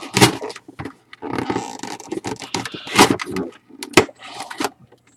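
Scissors cutting open the top of a cardboard box: a run of irregular sharp snips and clicks, mixed with rustling and crackling of the packaging.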